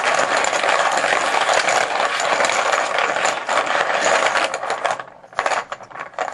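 Poker chips clattering together as they are mixed, a dense continuous rattle that breaks up about five seconds in into a few separate clicks before stopping.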